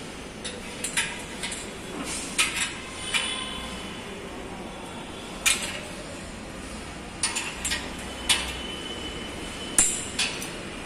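Scattered sharp metallic clicks and clinks, about a dozen spread irregularly, a few ringing briefly, from handling a hand pop-rivet gun and a blind rivet.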